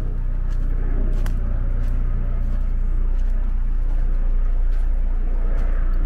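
Rain ambience on a woodland walk: scattered light taps of raindrops on an umbrella over a steady low rumble.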